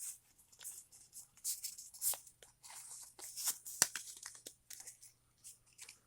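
Foil booster pack being torn open by hand, with irregular crinkling and short sharp rips of the wrapper.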